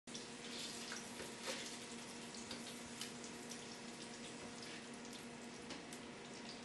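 Sausage patties and bacon sizzling on an electric griddle: a faint, steady hiss full of small crackles and pops, with a low steady hum underneath. It cuts in abruptly at the start.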